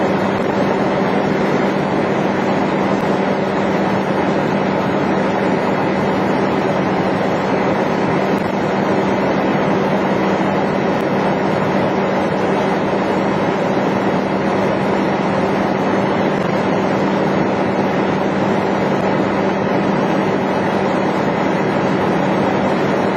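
Bucket truck's engine running steadily: a constant drone with a steady low hum and no change in speed.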